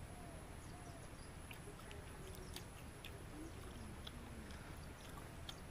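Faint wet mouth clicks while strips of cooked pig intestine are sucked in and chewed, over a low background with a few faint short falling chirps.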